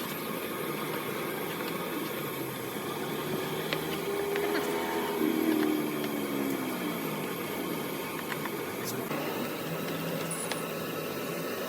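An engine running steadily. About halfway through, a whine falls in pitch over about two seconds, with a few light clicks.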